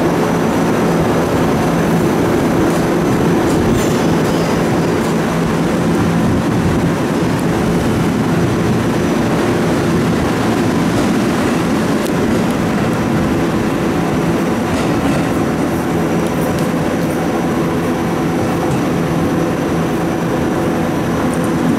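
Electric commuter trains in the station: a steady, loud running noise with a low hum and no sharp strikes.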